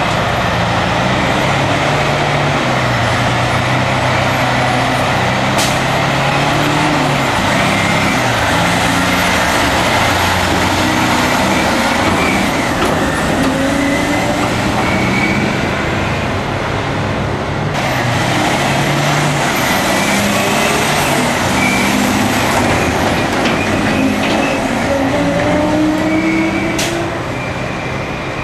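Caterpillar 773D rigid dump trucks' V12 diesel engines running and pulling away along a gravel haul road. The engine pitch rises a few times as they accelerate.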